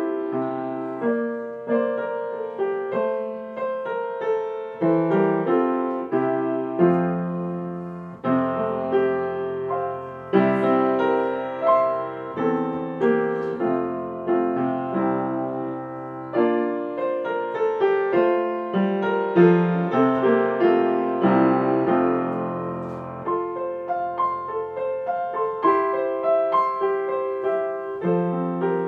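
Solo piano music, a gentle piece played with a steady flow of notes.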